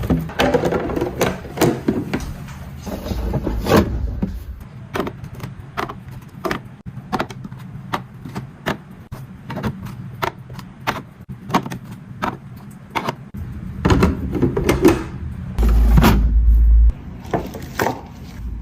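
Food containers and packaging being handled and set down while a fridge is restocked: a quick, irregular run of light clicks and taps, with a short low rumble near the end.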